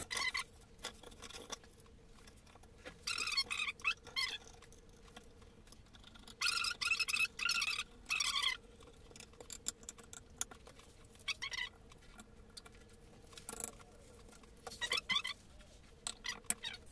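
Scraping and rubbing of a metal rod and hands working at an aluminium paper-plate die, in four or five short spells, over a faint steady hum.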